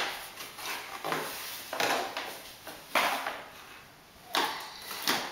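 Cardboard box costume scraping and bumping in a series of short noisy bursts, roughly one a second, as it is pulled off and handled.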